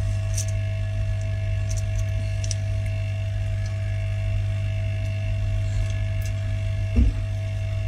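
A steady machine hum runs throughout, over the faint light clicks of a precision screwdriver working the tiny screws of an iPhone 5S display's metal shield. A single dull knock comes about seven seconds in.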